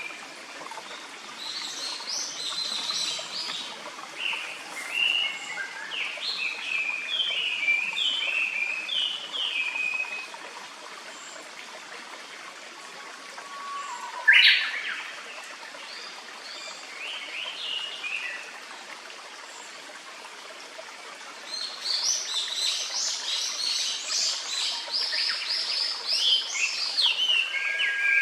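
Japanese paradise flycatcher singing, series of short repeated whistled notes, in bursts: through the first ten seconds, a single sharp call about halfway, and a denser stretch over the last seven seconds. A clear mountain stream babbles steadily underneath.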